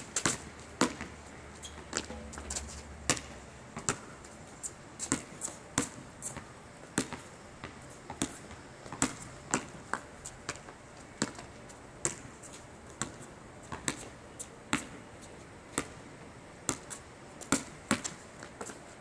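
Basketball bouncing on an outdoor asphalt court: a run of sharp, separate thuds, about one or two a second and some in quick pairs, as the ball is dribbled.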